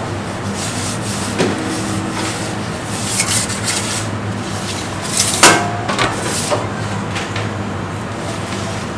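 Metal pizza peel scraping and knocking against the stone floor of a wood-fired oven as a pizza is moved, a few separate scrapes and knocks with the loudest about five and a half seconds in, over a steady low hum.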